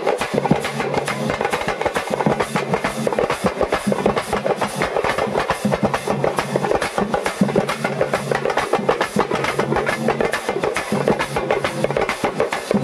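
Music of fast, continuous drumming, dense rapid beats without a break, with a low held tone underneath that comes and goes.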